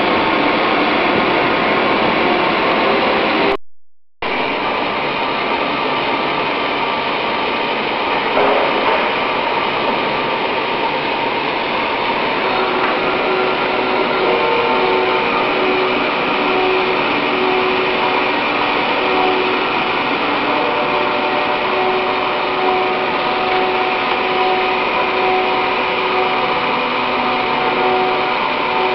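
Automatic carbide sawing machines running carbide-tipped cold saw blades through metal stock: a steady, dense cutting noise that briefly drops out a few seconds in, with steady whining tones coming in about twelve seconds in.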